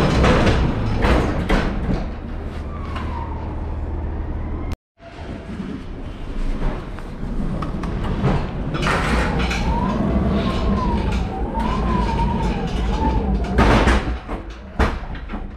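Electric pallet truck being driven: its drive motor whines, the pitch rising and falling with speed, over a low hum and knocks and rattles from the wheels and forks running over the floor. There is a loud clatter about fourteen seconds in. The sound cuts out for a moment about five seconds in.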